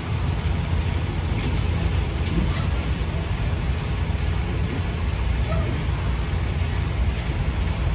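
Semi truck's diesel engine running as the tractor moves slowly into position, a steady low rumble.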